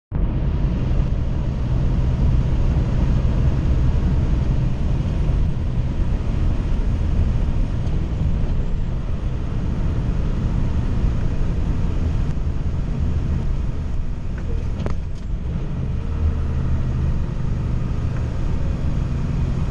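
Vehicle cruising at highway speed: steady low rumble of engine and tyre noise, with one brief click about fifteen seconds in.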